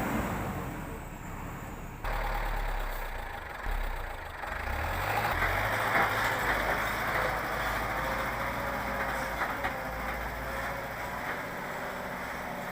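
Diesel engine of a heavy earthmoving machine running, jumping abruptly louder about two seconds in.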